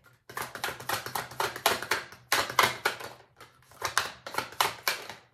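A deck of fortune cards shuffled by hand, giving a rapid, uneven run of crisp card clicks and slaps.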